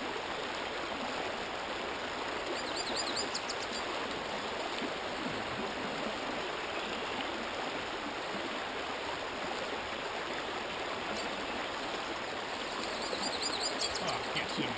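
Steady rushing of shallow creek water flowing over riffles. A bird sings a short, wavering high phrase twice, about two and a half seconds in and again near the end.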